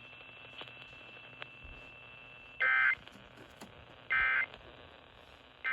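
Three short bursts of Emergency Alert System data tones, the warbling end-of-message code that closes an EAS test, about a second and a half apart. It is heard over AM radio, with a faint hiss between the bursts.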